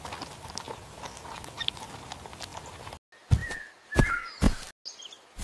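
Animal sound effects: a steady rustling hiss with small scratchy clicks, then, after a sudden break about three seconds in, three heavy low thuds with short high squeaks among them.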